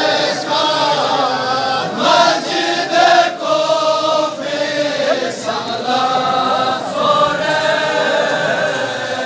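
Crowd of men chanting a Balti noha, a mourning lament, together in one long stretch of unaccompanied group chant.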